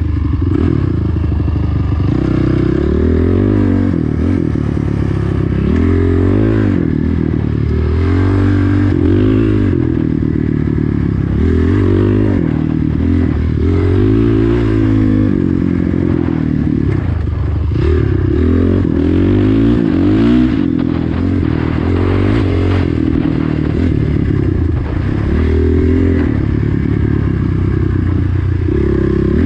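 Dirt bike engine revving up and easing off over and over as it is ridden along a sandy trail, its pitch rising and falling every two to three seconds.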